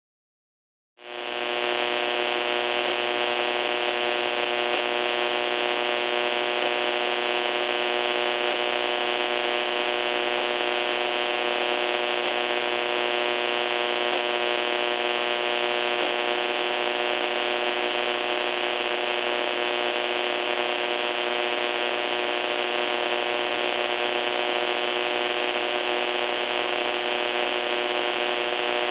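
AM radio static, a steady low-pitched hum mixed with hiss, tuned off-station. It fades in about a second in and holds at an even level.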